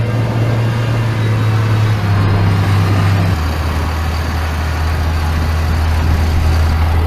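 Heavy diesel engine running steadily, its low drone shifting lower about three seconds in.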